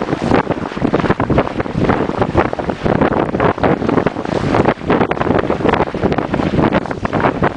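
Wind buffeting the microphone in strong gusts aboard a sailboat under way, with the rush of water along the hull beneath it.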